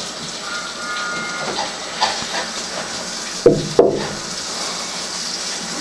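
Steady background hiss with a faint high-pitched puppy whine near the start, then two short, sharp puppy yips in quick succession a little past the middle.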